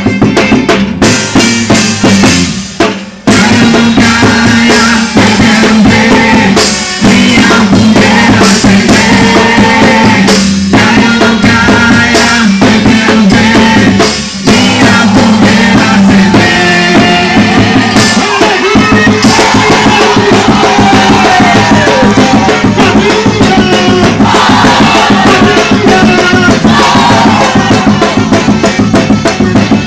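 Loud music driven by a steady drum-kit beat, with brief drops about three seconds in and about fourteen seconds in.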